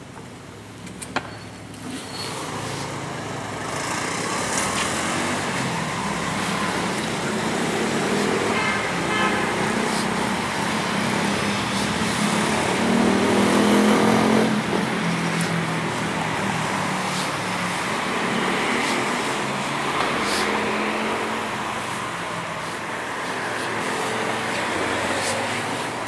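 Road traffic: cars running along a street, with one engine growing loudest about halfway through and then fading as it goes by. A sharp click about a second in.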